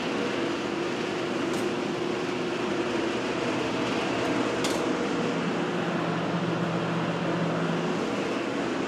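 Laminar flow hood blower fans running steadily: a constant rush of air with a low hum, with two brief faint ticks about a second and a half and four and a half seconds in.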